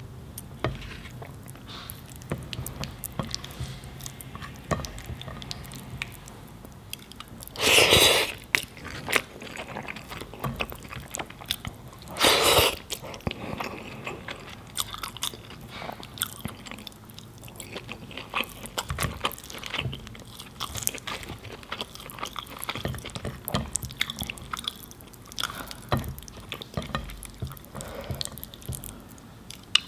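Close-miked eating sounds: chewing and wet mouth smacks of someone eating mutton biryani with curry sauce, made up of many small clicks. Two louder noisy sounds, each about a second long, stand out about eight and twelve seconds in.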